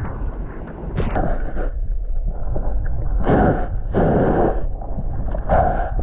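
Small waves washing over a GoPro camera at the waterline: muffled sloshing and splashing over a steady low rumble, with a few louder surges as the water covers the camera.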